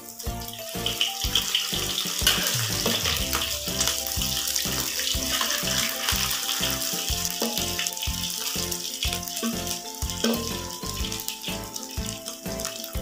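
Corn fritters frying in hot oil in a steel wok: a steady sizzling hiss. Background music with a steady beat plays along.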